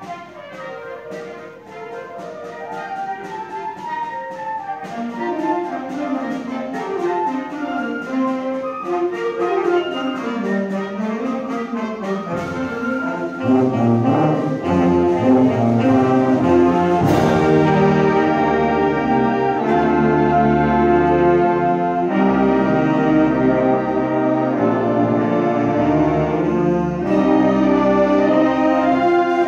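School concert band playing an overture: higher lines carry the music at first, then the low brass comes in about twelve seconds in and the full band plays louder, with a single crash a few seconds later.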